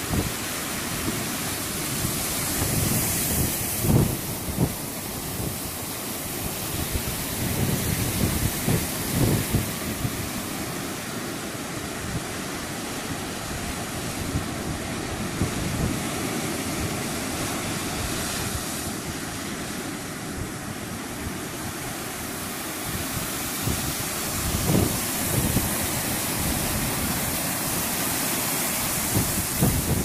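Ocean surf on a sandy beach: a steady rush of waves breaking and foam washing up the sand. Wind gusts now and then on the microphone.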